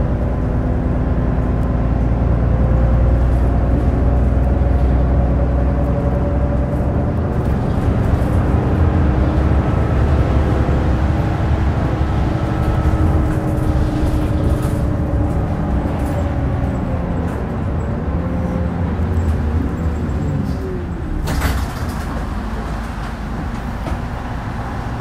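Mitsubishi Fuso LKG-MP37FKF city bus heard from inside while driving: diesel engine and road noise, the engine note rising and falling as the bus speeds up and slows. A brief sharp noise near the end.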